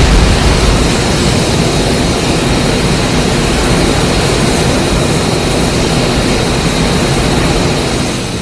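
Designed film sound effect for Mechagodzilla: a loud, steady, jet-like rush of noise with a thin high whine running through it, fading out near the end.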